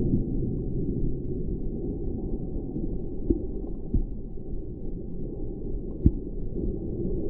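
Underwater ambience heard through an action camera's waterproof housing: a steady, muffled low rumble of moving water. A few sharp clicks break through it, the loudest a little after three seconds, at four seconds and a little after six seconds.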